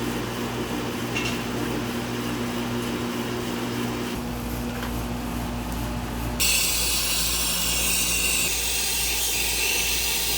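Steady mechanical hum with low steady tones; about six seconds in, a loud hissing noise joins it and stays on, with a few faint steady tones under it near the end.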